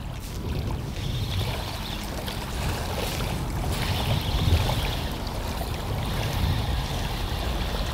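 Small waves lapping and washing on a sandy shoreline, with a steady low rumble of wind on the microphone.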